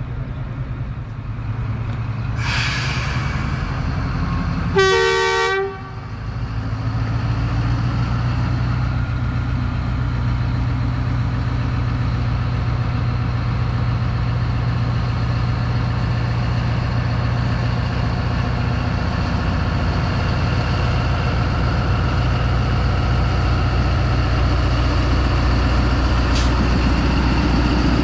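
Diesel locomotive departing with a passenger train: a short hiss about two seconds in, then one short horn blast about five seconds in, after which the engine runs steadily, growing slowly louder as the train pulls out.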